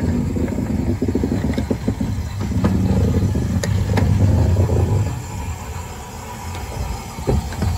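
A train running past: a heavy low rumble with rapid knocking, loudest about halfway through, easing off, then building again near the end.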